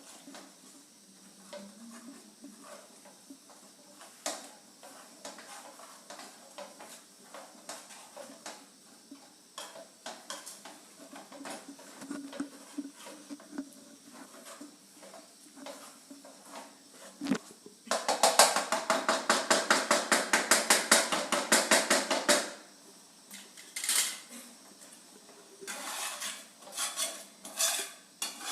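Spoon stirring thin gravy in a cooking pan: light scraping and tapping, then about four seconds of fast, loud stirring with the spoon clattering against the pan, followed by a few more knocks near the end.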